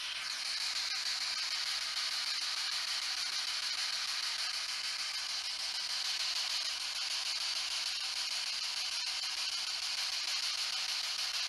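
Ghost box radio giving out a steady hiss of static, with the hiss sitting high in pitch; it cuts in suddenly at the start.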